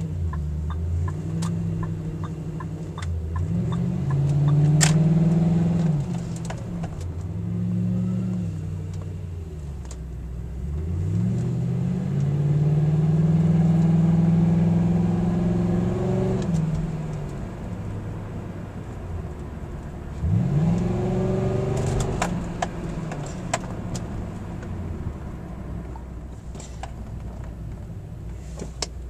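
2000 Lincoln LS 3.9L V8 breathing through Flowmaster 40 mufflers, with straight pipes in place of the resonators, heard from inside the cabin while driving. The revs rise and fall several times as it pulls through the gears and lets off. The longest pull holds steady for several seconds in the middle before a drop, and there is a sharp rev-up near the end.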